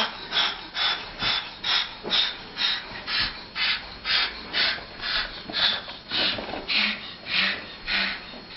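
Angry parrot hissing in a steady run of short breathy bursts, about two a second.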